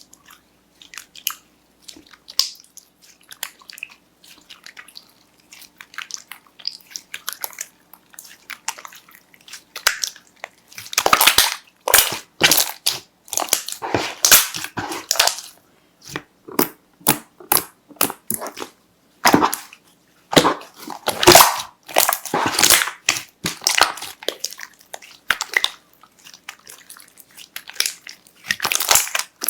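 Slime being handled by hand, with many sharp clicks and crackles: sparse and faint at first, then louder and denser bursts from about eleven seconds in.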